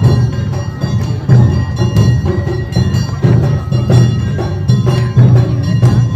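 Live Awa Odori festival music: taiko drums beating a steady, driving rhythm with a clanging metal bell and sustained high melody notes above.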